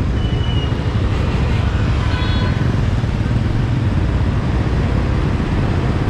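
Motorbike street traffic heard from a moving motorbike: a steady low rumble of engines and road noise, with a short horn toot about two seconds in.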